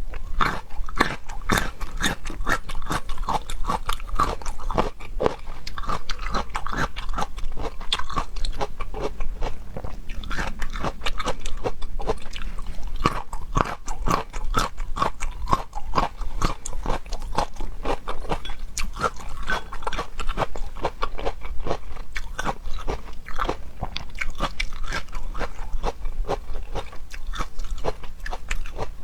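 A person biting into and chewing crunchy food: a dense, unbroken run of sharp crunches, many a second.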